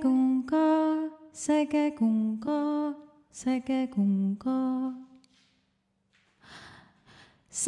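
A solo voice chanting short repeated syllables a cappella in a rhythmic pattern over a steady low hum; the chanting stops about five seconds in, and a breath follows near the end.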